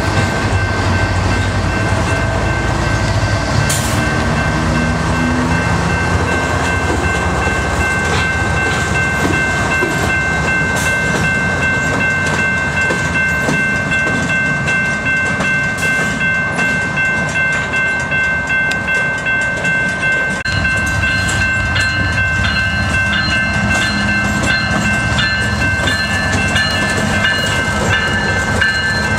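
Freight train cars rolling past with a rhythmic clickety-clack and steady high-pitched tones over the rumble. In the last third the diesel engines of approaching CN GE ET44AC locomotives grow louder.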